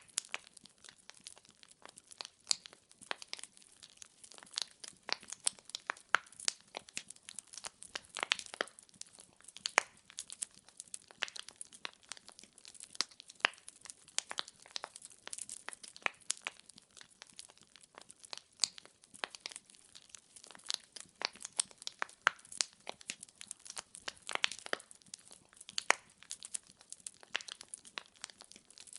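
Burning firewood crackling and popping steadily, with many irregular sharp snaps, a few louder pops standing out.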